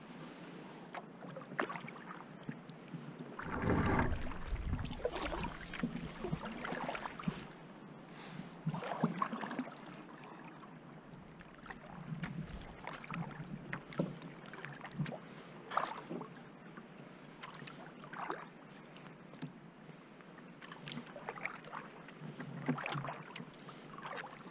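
Kayak paddle strokes splashing in slow river water at irregular intervals every second or two, over a light hiss of moving water, with a brief low rumble about four seconds in.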